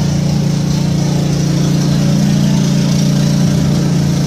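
Passenger launch's engine running steadily, a constant low drone.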